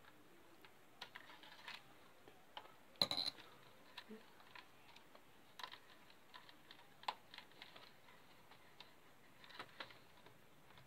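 Faint, scattered clicks and small knocks of plastic and metal as a Packard Bell EasyNote TJ75 laptop's hinge and casing are handled and its antenna cable is pulled free. The loudest knock comes about three seconds in, with another sharp click about seven seconds in.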